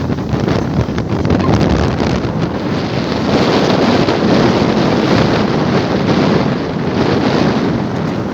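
Strong wind blowing across the microphone: a loud, steady buffeting rumble with no let-up.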